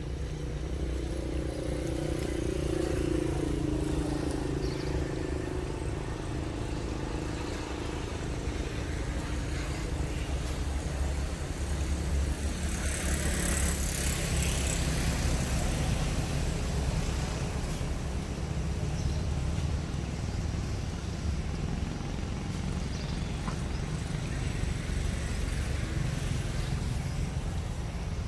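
Steady low rumble of outdoor background noise, with a louder hissing stretch about halfway through and a faint wavering sound, like a distant voice, in the first few seconds.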